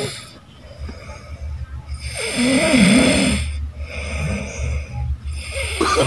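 A sleeping young man snoring heavily: long snores with a wavering pitch about two seconds in, a weaker one a little later, and another starting near the end.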